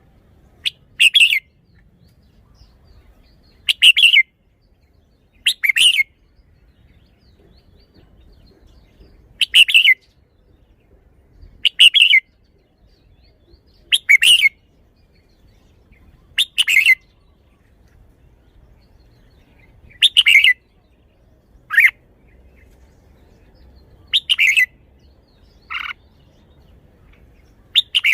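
Red-whiskered bulbul singing: about a dozen short, loud, bubbly song phrases, each under a second, repeated every two to three seconds.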